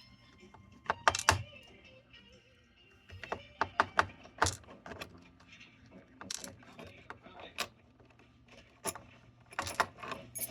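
Scattered small metallic clicks and taps as a Ruko padlock is taken apart and its pins and parts handled, over faint background television music and voices.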